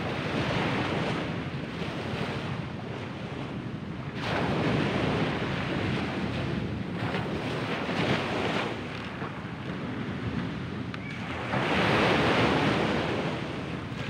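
Small sea waves breaking and washing up a sandy beach, coming in surges that swell and fade, the strongest about four seconds in and near the end.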